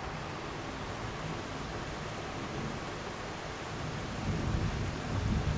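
Heavy rain falling steadily, with a low rumble of thunder building from about four seconds in.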